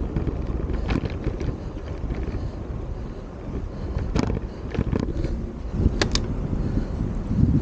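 Wind buffeting the microphone of a camera on a moving bicycle, over a steady low rumble from the ride, with scattered short clicks and a sharp pair of clicks close together about six seconds in.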